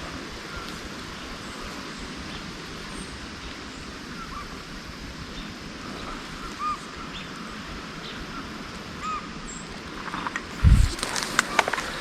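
Steady outdoor hiss with faint, short bird calls dotted through it. Near the end comes one loud low thump, followed by a flurry of clicks and rustling.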